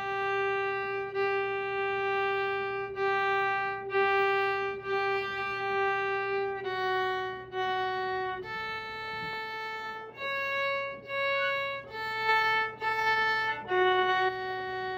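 Viola played with the bow: long, separately bowed notes, one pitch repeated about once a second for the first several seconds, then a short phrase that steps up and comes back down to the starting pitch near the end.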